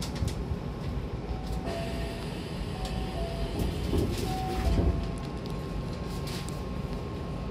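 Hankyu train's door-closing chime: a two-note high-low chime sounding three times over the carriage's steady rumble, with the doors thumping shut near the last chime.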